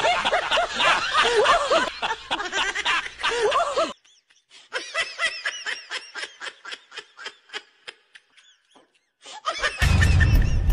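Hearty laughter, many laughs overlapping. About four seconds in it breaks into a quieter run of short, high-pitched laughs at about five a second. Near the end a loud burst of music with a deep boom cuts in.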